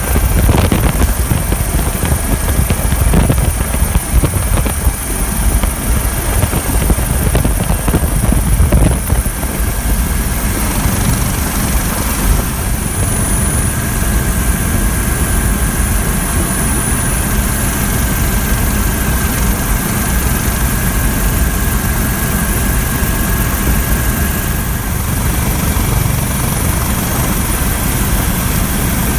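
Coast Guard MH-65 Dolphin helicopter in flight, heard from inside the aircraft: a steady, loud rotor and turbine din with a thin high whine running through it. The noise is more uneven for roughly the first ten seconds, then settles.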